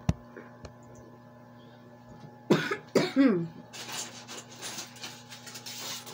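A person coughs twice, about two and a half seconds in, over a steady low hum. Breathy, hissing noise follows.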